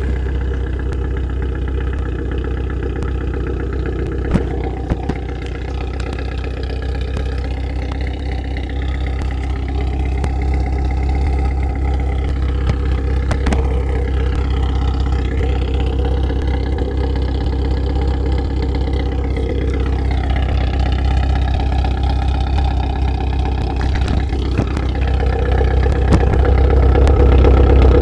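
Car engine idling through a Kakimoto Regu 06&R titanium muffler with no silencer insert, giving a loud, steady exhaust note. The engine speed drifts up and down slightly and the sound grows a little louder near the end.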